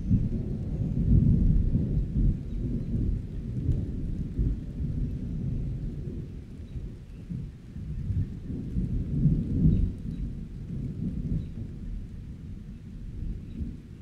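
Thunder rolling in deep rumbles with rain falling. The rumble swells about a second in and again after about nine seconds, then dies down toward the end.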